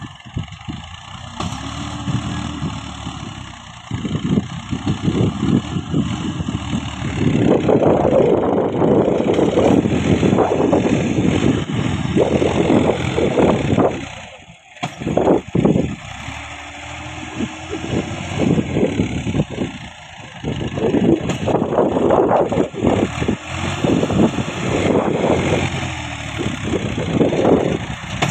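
Massey Ferguson 240 tractor's three-cylinder diesel engine labouring under load as it hauls a heavily loaded trolley through sand, revving up and down in long surges. The sound drops briefly about halfway through.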